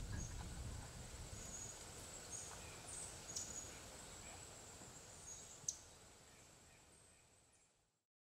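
Quiet woodland ambience: a steady high insect drone with a few short bird chirps and one sharp click a little before six seconds in, fading away to silence near the end.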